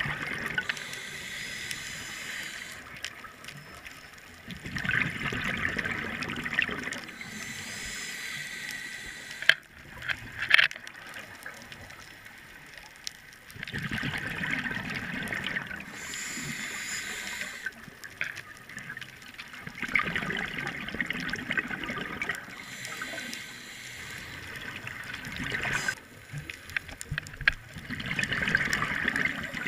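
Scuba diver breathing through an open-circuit regulator underwater: the hiss of each breath drawn and the rush of exhaled bubbles, in slow cycles about every six seconds. Two sharp clicks sound about ten seconds in.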